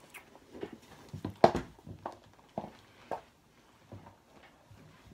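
Scattered soft knocks and rustles of a person shifting about and handling things, irregular and loudest about a second and a half in, then fewer and fainter.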